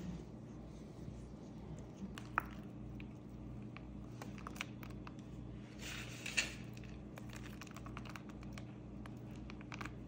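Faint scattered clicks and taps of kitchen handling as batter is scraped into a metal loaf pan and chopped walnuts are sprinkled over it, with a short rustle about six seconds in. A steady low hum runs underneath.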